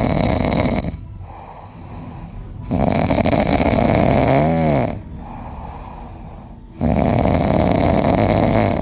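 Loud snoring in long, roughly two-second snores, one about every three seconds, with quieter breathing between them. A brief pitch that rises and falls sounds in the middle snore.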